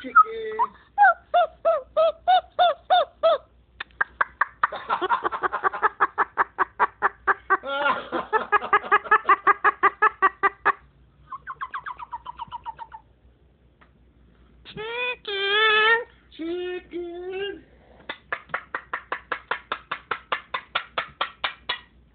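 Moluccan cockatoo chattering: long runs of rapid, even pulsed calls at about five a second, broken by short pitched squawks and a longer wavering call about fifteen seconds in.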